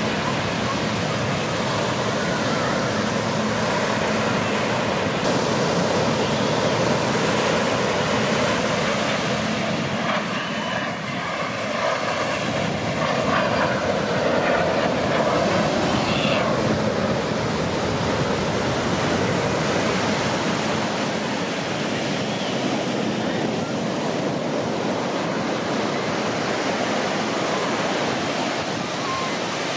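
Steady rushing noise of surf and wind, with a faint low hum that fades after about five seconds.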